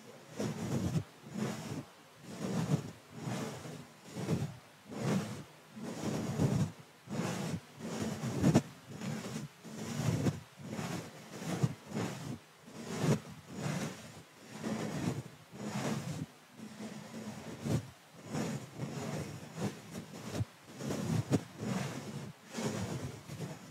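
A soft brush stroking back and forth over a condenser microphone's grille, each pass a brushing swish with a low rumble, in a steady run of strokes a little more than one a second.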